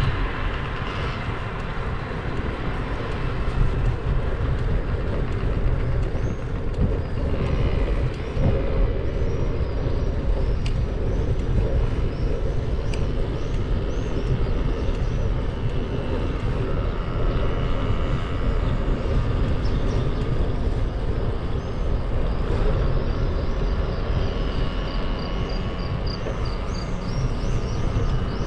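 Wind buffeting the microphone of a moving camera, a steady low rumble mixed with road noise. Faint high chirps come through near the end.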